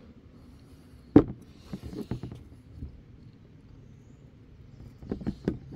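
Steel adjustable wrench clicking and knocking against the metal pin and bracket of an electric dirt bike's side stand as a very tight pin is worked loose. There is one sharp clack about a second in, a few lighter clicks soon after, and a few more near the end.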